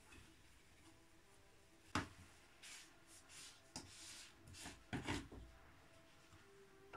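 Cloth towels rustling quietly as they are handled and pushed into the drum of a front-loading washing machine, with a sharp knock about two seconds in and two more knocks close together around five seconds in.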